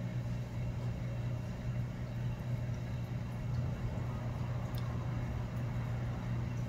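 Steady low hum of a small electric motor running, with a few faint ticks.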